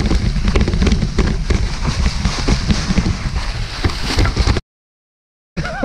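Mountain bike riding fast down a trail covered in dry leaves: wind buffeting the helmet-mounted camera's microphone, tyres crunching through the leaves, and the bike clattering over bumps in quick knocks. The sound drops out completely for about a second near the end, then returns.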